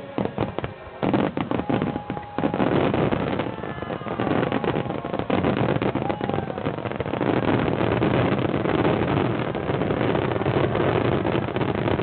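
Dense fireworks barrage: a quick series of separate sharp bangs for about two seconds, then many shell bursts merging into a continuous rumble, with faint whistles of rising shells.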